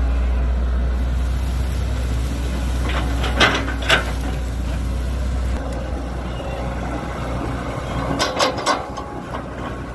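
Heavy machinery engine running at a steady low note that eases off a little about halfway through. Sharp metallic knocks come twice a few seconds in and as a quick cluster near the end.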